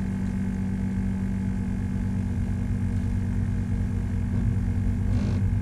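Boat motor running steadily at trolling speed, a constant low hum. A brief scuffing noise comes near the end.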